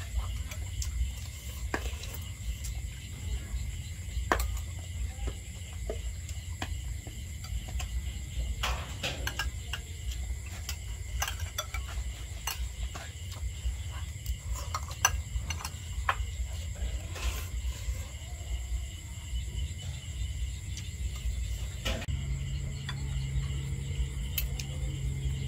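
Metal spoons clicking and scraping against ceramic rice bowls at scattered moments, over a steady low rumble. A low hum joins near the end.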